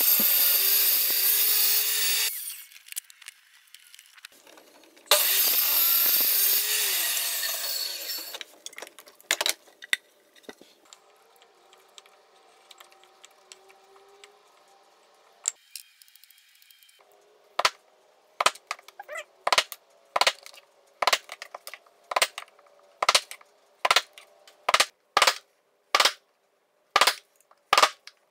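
A power tool cutting wood in two loud passes of a few seconds each, its motor pitch dipping under load. Later comes a long run of sharp, evenly spaced knocks, about two a second, like a mallet or hammer striking wood.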